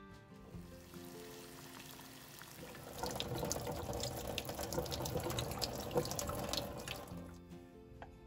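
Hot water from boiled sweet corn pouring out of a pot through its strainer lid into a sink, starting about three seconds in and lasting about four seconds, over soft background music.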